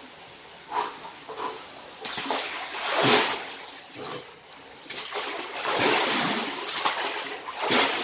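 Water splashing and sloshing in three bursts as a person moves in the cold water of a spring-fed bathing pool. The loudest burst comes about three seconds in, a longer one follows around five to six seconds, and a short splash comes near the end.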